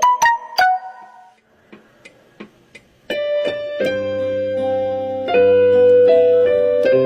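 Keyboard music: a few quick notes, a short near-quiet pause with faint ticks, then sustained piano-like chords from about three seconds in.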